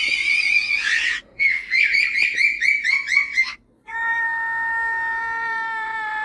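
High-pitched cartoon laugh sound effects: a shrill burst, then a quick run of squeaky 'ha-ha' pulses at about four a second, then, after a brief break, one long held squealing note that sags slightly in pitch.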